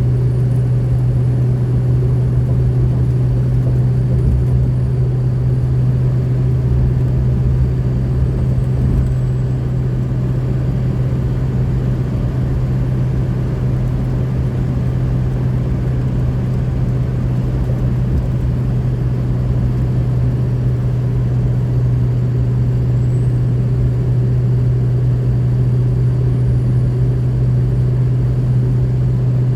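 2003 Ford F350's 6.0 Power Stroke turbo-diesel V8 running steadily at an unchanging engine speed, with a faint high whistle at times. It runs with its exhaust leak cured by a new Y-pipe-to-turbo V-clamp.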